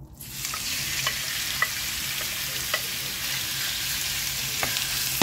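Cubed raw chicken breast sizzling steadily in hot olive oil in a nonstick skillet, the sizzle starting just as it goes in. A wooden spoon stirring it gives scattered light clicks and taps against the pan.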